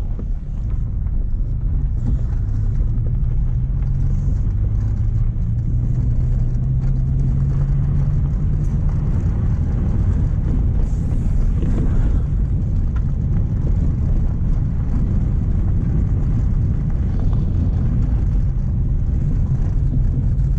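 Mk1 Renault Clio driving, engine and road rumble heard from inside the car. The engine note rises over the first several seconds as the car picks up speed, then holds steady.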